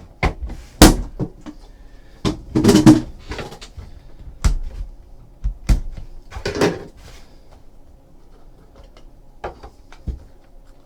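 Trading card hobby box being opened and handled: a series of sharp knocks and clicks mixed with short scraping and rustling sounds. It thins out to a few faint ticks after about seven seconds.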